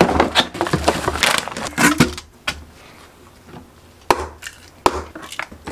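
Knocks and clicks from smoothie ingredients and the plastic cup of a mini tumbler blender being handled on a countertop: a quick run of clicks for about two seconds, then a few separate knocks.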